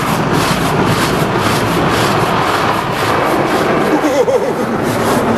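Automatic car wash heard from inside the car: a loud, steady rush of water spray and rotating brushes on the body and windshield. A brief wavering tone comes through about four seconds in.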